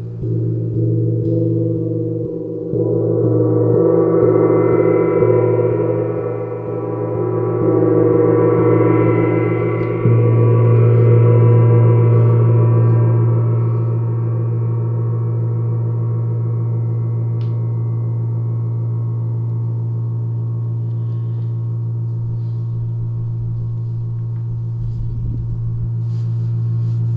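Singing bowls ringing in long, overlapping sustained tones: a deep hum underneath, with higher overtones that swell over the first several seconds and then fade away. The deep tone grows louder about ten seconds in and holds steady.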